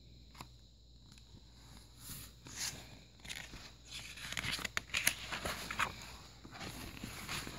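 Paper page of a picture book rustling and crinkling as it is handled and turned: soft irregular clicks and rustles that start about two seconds in.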